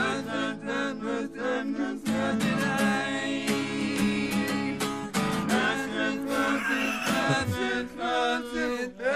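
A comedy rock song: acoustic guitar strumming under male singing.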